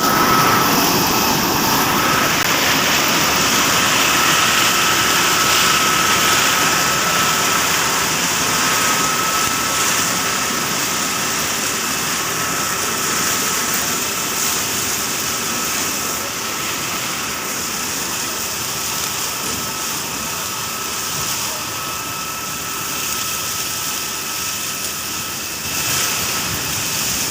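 Corn pick harvester running steadily: a constant machine drone with a thin high whine over it, easing off slightly after the first ten seconds or so.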